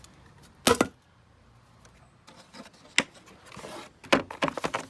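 Metal tools or parts being handled: one loud clank, a sharp click a couple of seconds later, then a quick rattle of clicks and knocks near the end.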